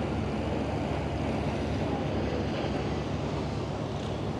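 Steady low rumble of a passenger ferry's engines under an even hiss of wind and water.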